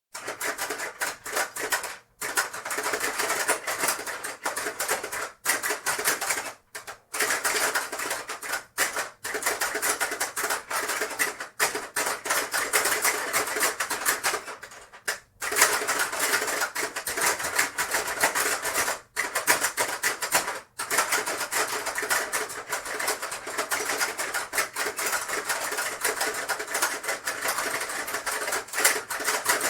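Hungry Hungry Hippos board game being played: the plastic hippos' jaws clack rapidly and continuously and marbles rattle on the plastic board, broken by a few brief pauses.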